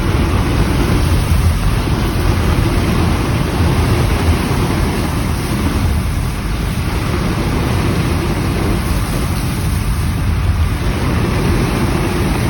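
Steady road and tyre noise of a car driving on a wet, icy road, with a continuous low rumble and no distinct events.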